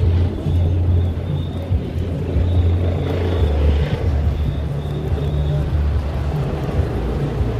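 Steady low motor rumble, with a faint high tone pulsing on and off above it.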